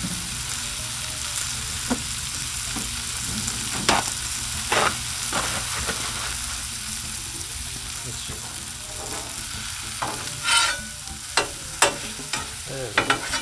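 Onions and mushrooms sizzling in melted butter on a hot steel flat-top griddle, a steady frying hiss. There are two sharp clicks about four and five seconds in, and near the end metal spatulas scrape and clack on the griddle top.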